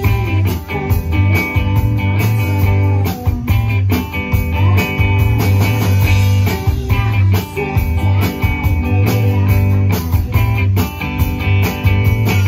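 Live rock band playing: two electric guitars over bass guitar and drum kit, with a strong bass line and steady drum hits throughout.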